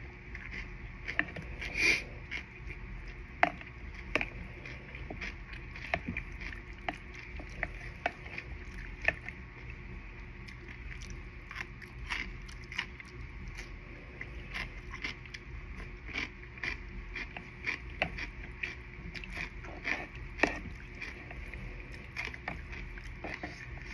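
Close-miked eating sounds: chewing with many irregular small mouth clicks and smacks, and one louder, longer noise about two seconds in.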